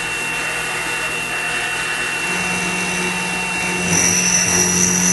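Milling machine spindle running with a steady high whine. A low hum comes in about two seconds in, and near the end a louder high-pitched note joins as the end mill cuts into the aluminium.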